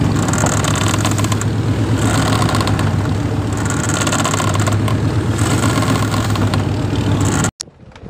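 A boat's engine running steadily with a low drone, under wind and sea noise on a phone microphone. It cuts off abruptly near the end.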